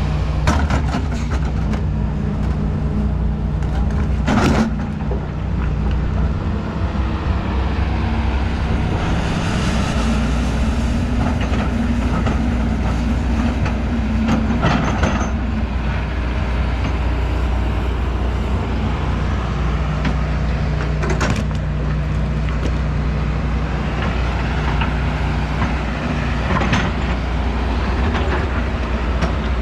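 Excavator's diesel engine running steadily under working load, with a few sharp clanks scattered through from the bucket and arm at work.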